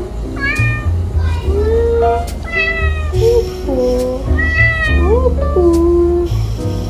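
Domestic cat meowing repeatedly, with background music and a steady beat underneath.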